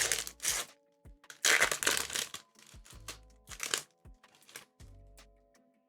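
Foil booster-pack wrapper crinkling and rustling in several loud bursts as it is handled, over soft background music with held notes.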